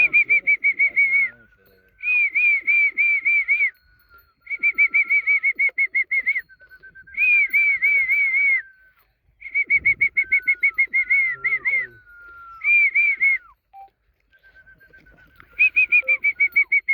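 A bird calling: runs of rapid, evenly spaced whistled notes repeated over and over with short pauses, with softer lower whistles sliding down in between.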